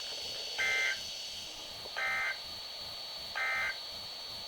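NOAA Weather Radio sending the end-of-message data bursts of an EAS/SAME alert: three short, buzzy two-tone digital bursts about a second and a half apart, marking the end of the flood warning message.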